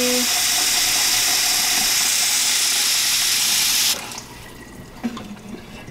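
Kitchen tap running a steady stream into a large metal pot already partly full of water, splashing as it fills for pasta. The running water stops abruptly about four seconds in.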